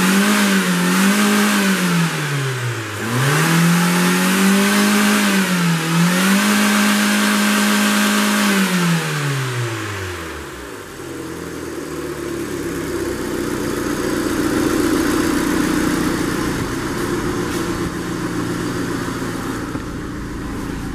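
Hyundai Accent's 1.3-litre G4EA SOHC 12-valve four-cylinder engine held at full revs near its limit, dipping briefly twice, then released about nine seconds in so that the revs fall away. It runs more quietly for the rest.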